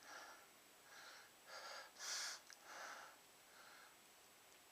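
A man taking a series of short, gasping breaths, about six in a row, the loudest a little after two seconds in. A sneeze is building from snorted chhinkni sneezing powder but does not come.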